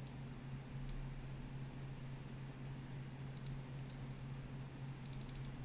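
Faint clicking from a computer keyboard at a gaming PC: a few single clicks, then a quick run of about six clicks a little after five seconds in, over a steady low electrical hum.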